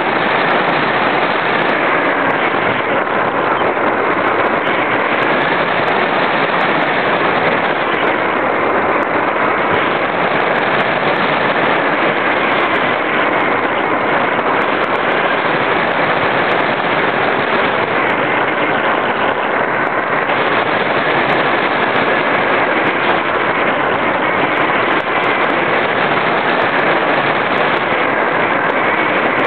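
Loud, steady rush of air over the microphone of a small camera carried aboard an RC glider in flight.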